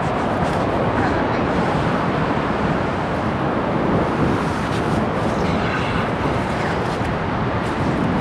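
Steady wind on the microphone over ocean surf, a dense, even rumble on an open beach.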